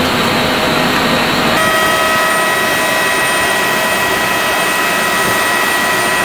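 A parked Dassault Falcon 900EX business jet's turbine running with a steady rush of noise. About a second and a half in, a high, steady whine of several tones rises above the rush.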